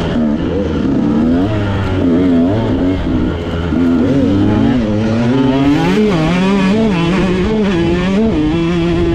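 Off-road dirt bike engine revving hard under a rider's throttle, its pitch rising and falling about every second as he accelerates and backs off over rough ground, holding steadier near the end.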